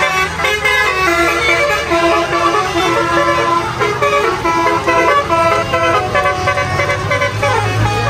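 Basuri telolet musical horn on a Sedya Mulya intercity bus playing a quick tune of stepping tones, with the low hum of the bus engine underneath.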